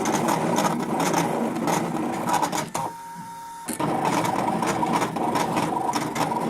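Brother ScanNCut cutting machine running as its blade carriage moves and cuts out images from thick designer series paper: a steady whirr of stepper motors with fast ticking. About halfway through it goes much quieter for around a second, then resumes.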